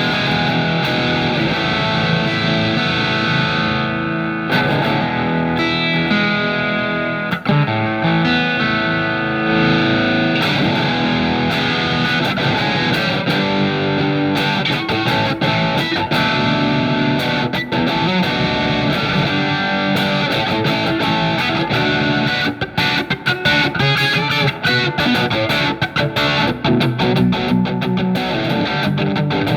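Electric guitar, a Fender Telecaster played through a Marshall MG15FX solid-state practice amp, with a lightly driven tone. It plays sustained chords and single-note lines, then turns to quick, choppy picked notes near the end.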